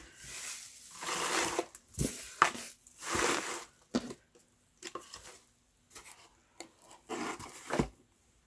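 Crinkle-cut paper shred filler and bubble wrap rustling and crackling as a cardboard shipping box is handled and pushed aside, in two longer bursts in the first few seconds, then softer rustles. A few light knocks on the tabletop.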